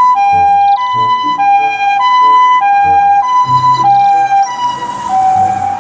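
Japanese ambulance's two-tone electronic siren, alternating steadily between a high and a low note, each held a little over half a second. Both notes drop slightly in pitch near the end.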